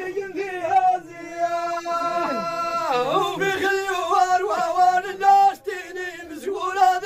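A solo male voice chanting Amazigh sung verse in a high register, holding long drawn-out notes, with a slide down about three seconds in.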